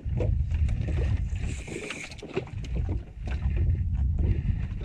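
Wind buffeting the microphone in a heavy low rumble, with short bursts of a spinning reel's drag buzzing as a hooked fish pulls line off, about a second and a half in and again near the end, among scattered clicks of the reel.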